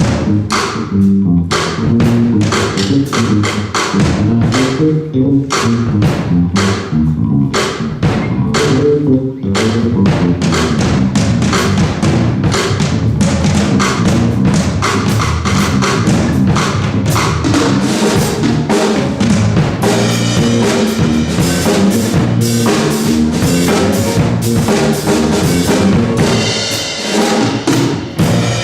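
Funk trio of electric guitar, electric bass and drum kit playing live. For about the first nine seconds the band plays short, separated accented hits over the bass line, then the full drum groove kicks in and the music runs on continuously.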